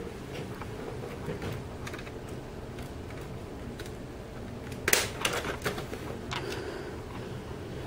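Plastic LEGO parts clicking and rattling as the magazine is taken out of a LEGO model rifle, with a quick cluster of sharp clicks about five seconds in, over a steady low hum.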